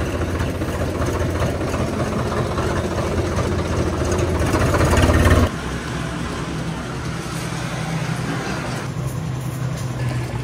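A tractor's diesel engine running, heard from the driver's seat, growing louder over about five seconds and then cut off abruptly. A quieter, steady low hum follows while diesel is hand-pumped from a drum with a rotary barrel pump and poured into the tractor's tank.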